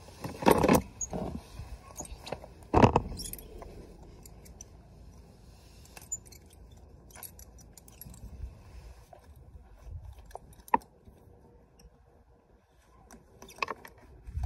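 Metal horse tack jingling and clinking as a bridle's bit and buckles are handled, with two loud knocks in the first three seconds and scattered light clicks after.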